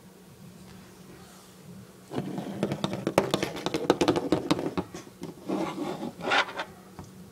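Scraping, rubbing and clicking of hands handling small plastic toy horse figures and the phone, a dense run of quick clicks and scrapes starting about two seconds in, over a faint steady hum.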